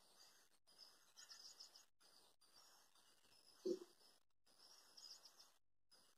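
Near silence with faint bird chirps, in short runs about a second in and again near the end, and one short thump about three and a half seconds in.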